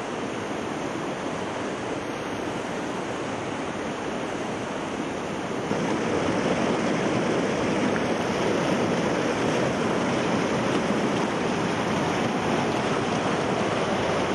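River rapids rushing over boulders: a steady rush of white water, growing louder about six seconds in.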